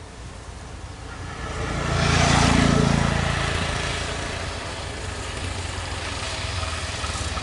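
Three-wheeler auto-rickshaw (tuk-tuk) passing close by. Its small engine grows louder to a peak about two to three seconds in, then fades to a steadier running sound as it moves off.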